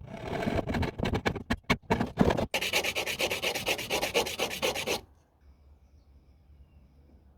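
Hand abrasive work, sanding strokes: uneven strokes at first, then a fast, even run of strokes that stops about five seconds in.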